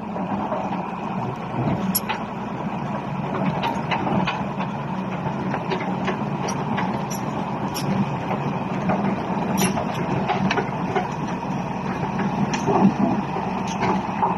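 Volvo EC290BLC crawler excavator's diesel engine running steadily, with scattered sharp ticks and clanks over it.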